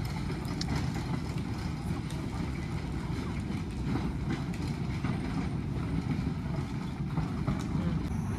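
A small narrow-gauge field-railway locomotive running as it moves along the 600 mm track, a low, steady sound.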